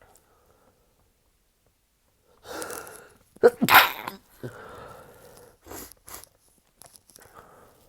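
A person sneezing as part of a sneezing fit. A drawn-in breath comes about two and a half seconds in, then one loud, sudden sneeze, followed by quieter breathing and a few short sniffs.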